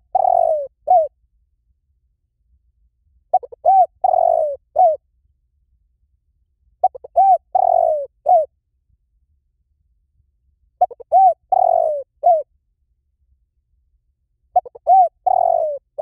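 Spotted dove cooing. Each phrase is a few quick short coos, then a longer falling coo and one short coo to close. The phrase repeats about every four seconds: the end of one at the start, then four more.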